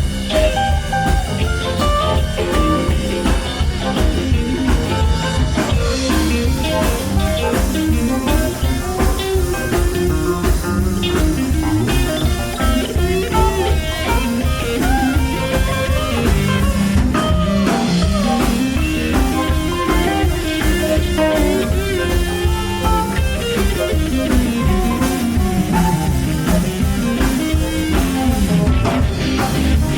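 A live rock band plays an instrumental passage, with guitar out front over bass and drums and a steady beat.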